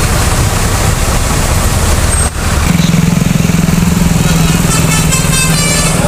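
Heavy road traffic with buses, cars and motorcycles passing close by, engines running. From a little before halfway a nearby vehicle's engine sets up a steady low drone, and in the second half short horn tones toot over it.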